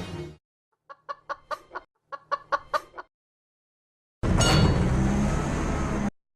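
Chicken clucking: two quick runs of about five short clucks each, a moment apart. Later a loud, even, noisy sound lasts about two seconds and then stops abruptly.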